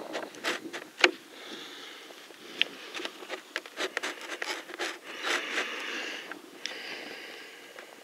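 Irregular close knocks and clicks with rubbing, the loudest about a second in, and a few breathy hissing stretches of about a second each.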